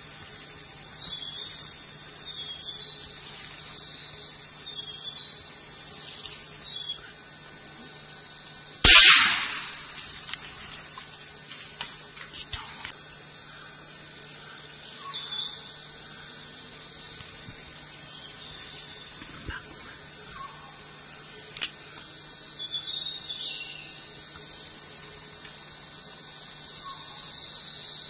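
Forest insects, crickets or cicadas, keeping up a steady high drone with small chirps. About nine seconds in comes one loud, sharp bang that rings off for about a second.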